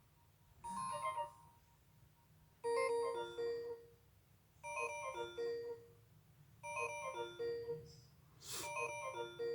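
Nokia 105 (2015) phone loudspeaker playing a short polyphonic ringtone phrase of about a second, repeated five times at roughly two-second intervals. The phone is a broken unit running on an empty battery.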